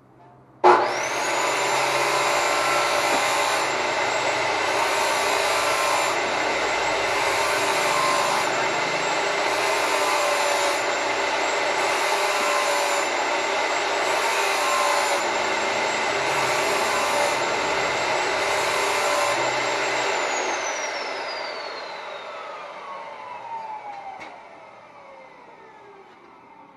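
A high-speed electric power tool switched on, its motor whining up to speed within a second and running steadily at one high pitch. After about twenty seconds it is switched off and winds down in a long, slowly falling whine.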